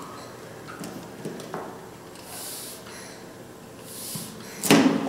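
Two ventilations with a bag-valve-mask on a CPR training manikin, each squeeze a short hiss of air through the mask, about a second and a half apart. A loud knock follows near the end.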